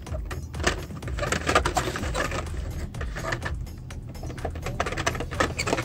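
Blister-packed Hot Wheels cars clacking and rattling against each other as they are pushed along a store peg: a quick, irregular run of plastic clicks over a low rumble.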